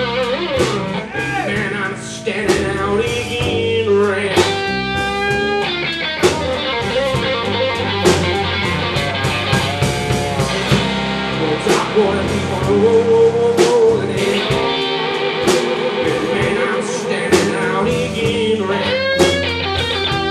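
Two guitars, a Stratocaster-style electric and a sunburst archtop, playing slow blues live, with bending lead notes over the accompaniment.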